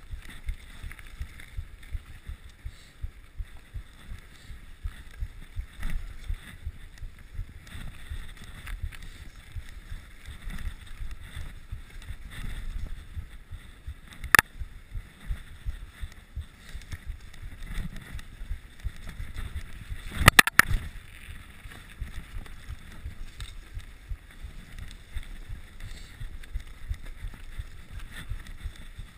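Mountain bike riding over a snowy, bumpy trail: a steady low rumble of tyres, jolts and wind on the microphone. A single sharp knock comes about halfway through, and a short burst of loud clacks about two-thirds of the way in.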